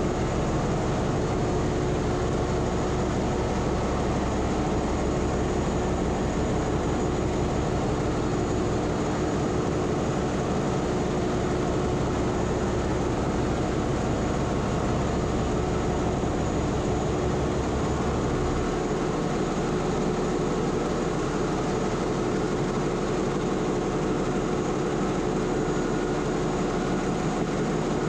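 HiMSEN marine diesel generator engine, freshly started, running at 720 rpm with no load, heard close up in the engine room as a steady drone with a steady tone through it.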